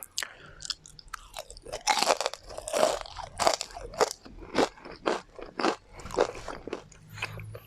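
Close-miked chewing of crispy deep-fried chicken tendon: a steady run of sharp crunches, about two a second.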